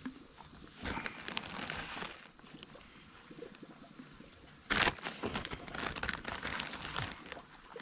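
Plastic zip-lock bag crinkling as it is handled and food is spooned out of it, with one short, louder crinkle about five seconds in.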